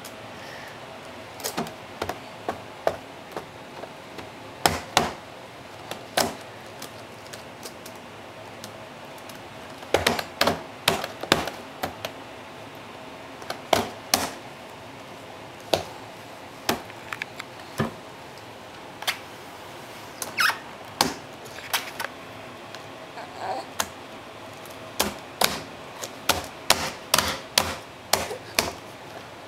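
A baby's hands slapping and banging on the keyboard and palm rest of a white plastic laptop: irregular clattering taps, some single and some in quick runs, with pauses of a few seconds between the runs.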